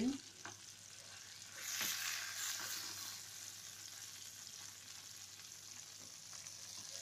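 Chicken rolls sizzling in hot oil in a frying pan, the hiss swelling about two seconds in as they are moved, with a few light knocks of a wooden spatula against the pan.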